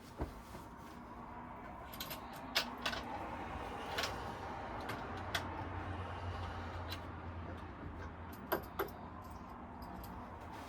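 Scattered clicks and knocks of sofa parts and hardware being handled and fitted during flat-pack assembly, over a steady low hum, with a sharp double knock near the end.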